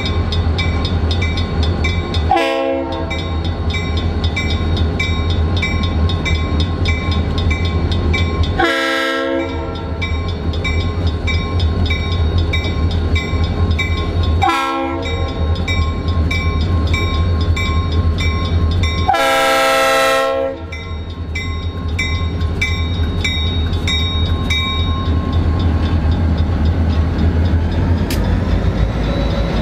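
Two EMD Geep diesel locomotives hauling a freight train, their engines making a steady low drone, while a multi-note air horn sounds four blasts for a grade crossing, alternating short and long. A crossing-signal bell rings rapidly and stops a few seconds before the end as the locomotives pass close.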